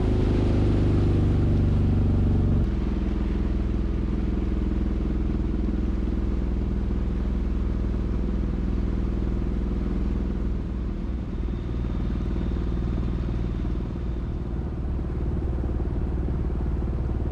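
Outboard motor running steadily at low speed with the boat under way, its note and level dropping a step about two and a half seconds in. The engine is running rough and is down to one cylinder, kept on just enough throttle not to stall.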